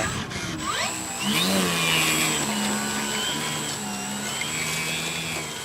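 Funtana radio-controlled airplane's motor running at low throttle as the damaged plane taxis back on the ground: a steady buzzing hum that steps between a lower and a higher pitch several times.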